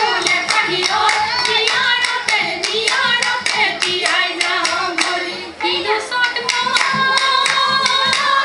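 Women singing a Jeng Bihu song over steady, quick hand-clapping that keeps the beat, about three claps a second.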